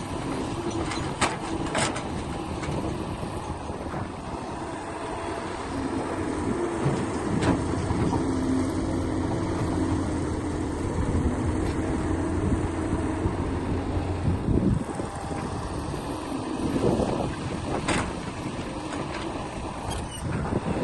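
Heavy machinery engine running steadily. It gets louder, with its note rising and falling, through the middle. A few sharp metallic knocks come near the start and near the end.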